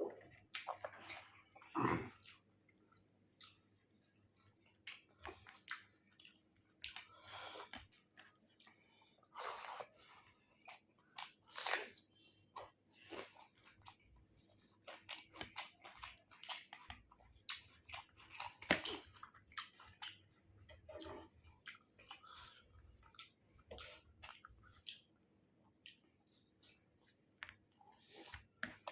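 A person chewing and eating chicken curry with rice, close to the microphone: many short, irregular mouth and chewing sounds.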